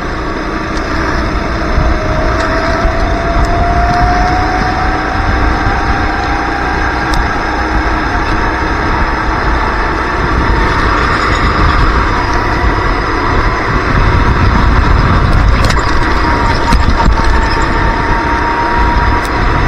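Racing kart engine running hard at speed, with wind rush on the onboard microphone; its pitch climbs slowly as the kart accelerates along the track.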